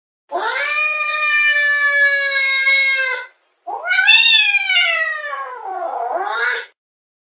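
Domestic cat giving two long, drawn-out meows, the second rising and then falling in pitch.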